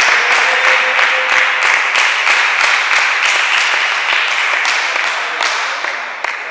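Spectators applauding the end of a table tennis point: many quick handclaps that slowly die down.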